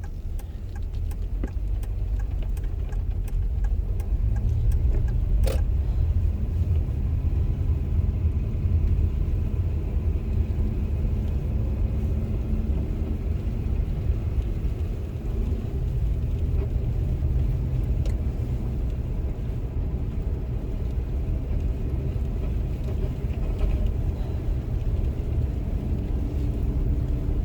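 Car cabin noise while driving on a snow-covered road: a steady low rumble of engine and tyres, which grows louder a few seconds in. There is a single sharp click about five and a half seconds in.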